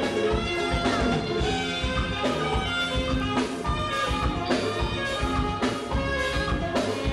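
Live forró band music: a saxophone plays the lead line over a drum kit keeping a steady beat.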